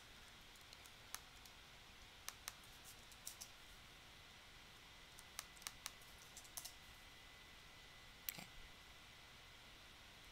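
Faint, scattered clicks of a computer mouse and keyboard, irregularly spaced, the heaviest about eight seconds in.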